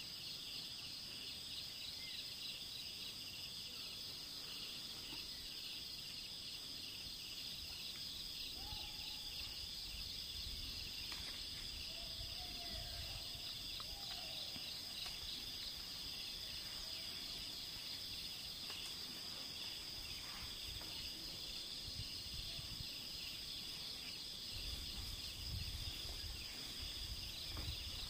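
Steady forest insect chorus, a high, fast-pulsing trill that runs on without a break. A few faint bird calls come in the middle, and a low rumble comes near the end.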